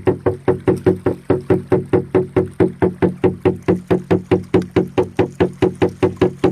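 Music: a steady run of short, evenly spaced pitched notes, about four a second, each dying away quickly.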